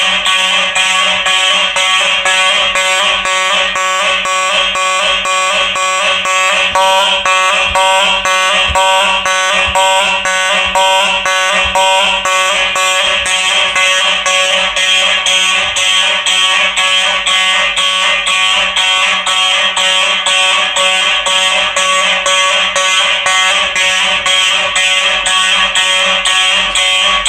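Simplex 4903 electronic fire alarm horns sounding in march-time code: a loud, harsh horn tone pulsing evenly about twice a second.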